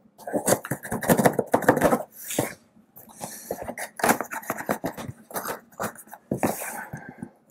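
Utility knife blade slicing through packing tape along the seams of a cardboard box: a run of irregular scratchy scrapes and ticks of blade and cardboard, with a longer rasping stroke near the end.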